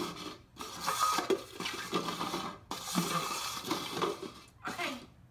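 Plastic Solo cups scraping as they are slid around on a tile floor, a rushing noise in several long strokes with brief breaks between them.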